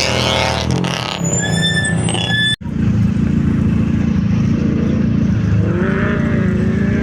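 Rally car engine running loudly at the start line, with a few short high tones over it, until a sudden cut about two and a half seconds in. After the cut, another car engine idles steadily with a low drone.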